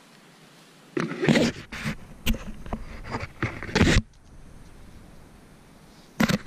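Climbing gear handled close to the microphone: a nylon sling rustling and being pulled through the hands, with sharp clicks and knocks, for about three seconds from a second in, then one short burst again near the end.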